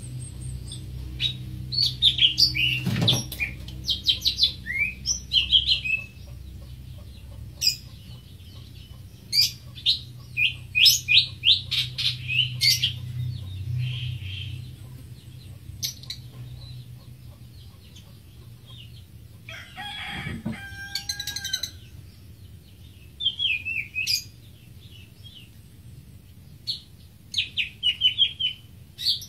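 Greater green leafbird singing: phrases of quick, rapidly repeated chirps and trills, high-pitched, coming in bursts with short pauses between them. About twenty seconds in there is a lower, harsher call with more body.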